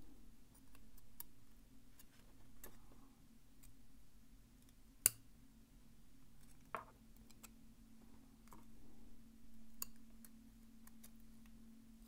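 Faint light metallic clicks and ticks of steel tweezers working in the pin chambers of a lock cylinder's plug, prying at the interactive-element mechanism, with one sharper click about five seconds in.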